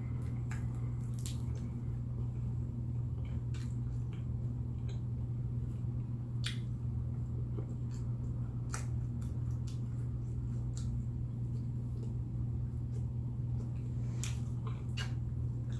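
Close-miked mouth sounds of someone eating chicken wings: scattered wet clicks and smacks of chewing, over a steady low hum.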